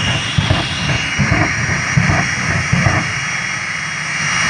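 Jet engine running with a steady high whine over a loud rumbling roar.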